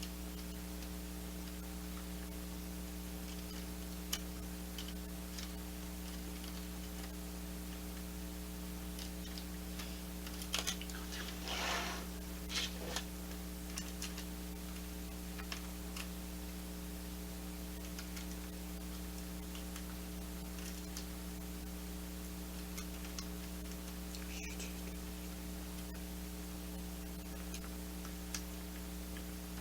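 Light clicks and taps of plastic LEGO bricks being handled, scattered through, with a short cluster about ten to thirteen seconds in, over a steady electrical hum.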